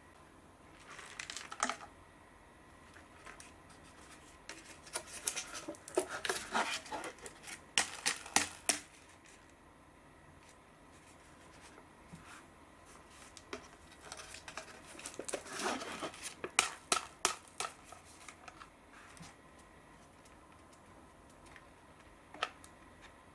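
Cup Noodle cups being opened by hand, their paper-foil lids peeled back with crinkling and crackling, in two main bouts a few seconds long, plus a short one near the start and a few lone clicks near the end.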